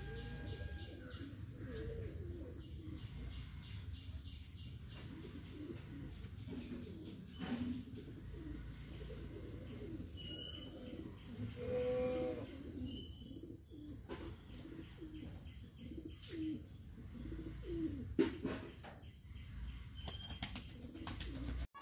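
Domestic pigeons cooing over and over, with a few short high chirps about halfway through.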